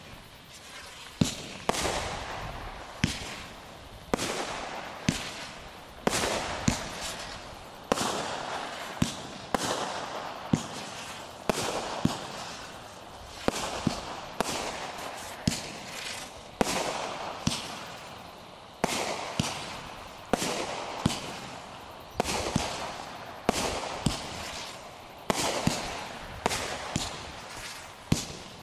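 Shogun "Poisonous Spider" small-bore multishot fireworks cake firing shot after shot, with a sharp report about once a second. Each report is followed by a short fading tail of noise as the break burns out.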